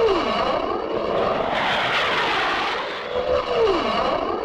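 Cartoon sound effect of a propeller airplane: a droning engine that swells and fades, its pitch swooping down twice, once at the start and again about three and a half seconds in.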